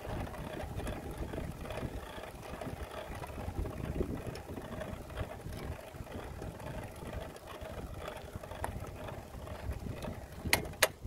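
Genesis V2100 mountain bike being ridden, its chain and derailleur drivetrain running with a steady mechanical noise in a gear combination that the rider suspects points to a derailleur not working right. Wind rumbles on the microphone, and two sharp clicks come near the end.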